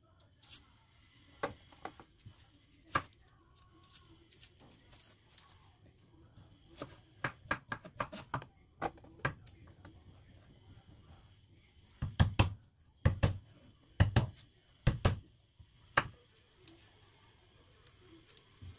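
Kitchen knife cutting onion on a cutting board: scattered sharp taps of the blade on the board, a quick run of light cuts about seven seconds in, then a handful of louder, heavier knocks about twelve to sixteen seconds in.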